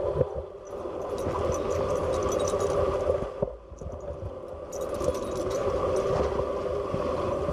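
A steady droning hum over an uneven low rumble, with scattered light clicks and taps. It dips briefly in level about halfway through.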